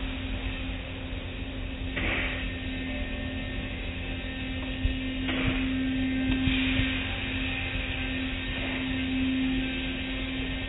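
Automatic car wash machinery running with a steady hum and low rumble, while water spray hisses against the car in surges about two seconds in and again from about five to seven seconds.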